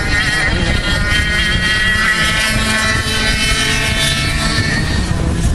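Several two-stroke racing kart engines running at high revs, their pitch rising and falling as the karts go round the track, over a low rumble.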